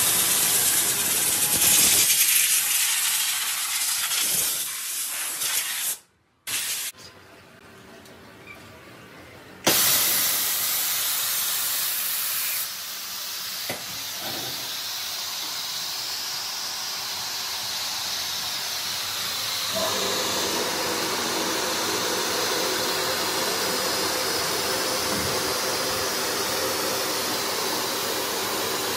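Compressed air hissing loudly from a blow gun on a coiled air hose. After a break, an automatic ski-service machine runs with a steady noise, and a low hum joins about two-thirds of the way through.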